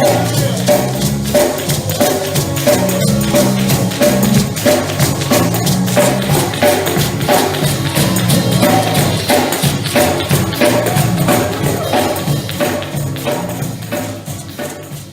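Live gospel praise music with no singing: a tambourine shaken in a fast, steady beat over a moving bass line. The music grows quieter over the last couple of seconds.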